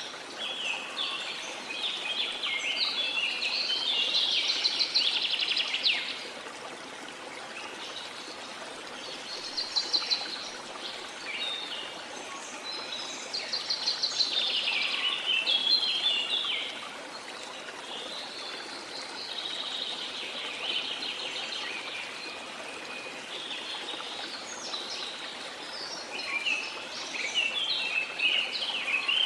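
Small songbirds singing in bursts of rapid twittering chirps, coming and going every few seconds, over a steady wash of sea water.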